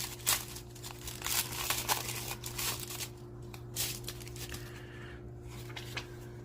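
A trading card pack's wrapper being torn open and crinkled, dense crackling for about three seconds, then sparser rustles as the cards are handled. A steady low hum runs underneath.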